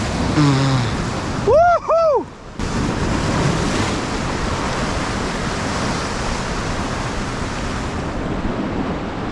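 Sea surf breaking, with wind buffeting the microphone. About a second and a half in come two short cries that rise and fall in pitch; after that the surf and wind run on evenly.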